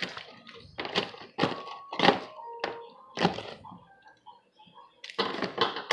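A series of sharp knocks and clacks, roughly one every half second, then a quieter stretch and a quicker cluster of knocks near the end: hands and objects knocking about while homemade slime is handled and mixed.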